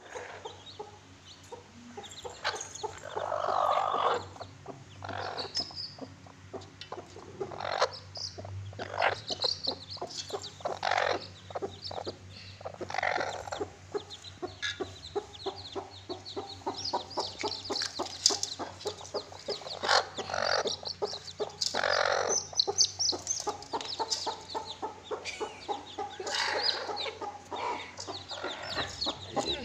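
Chickens clucking again and again, with many high, thin cheeps of chicks over them.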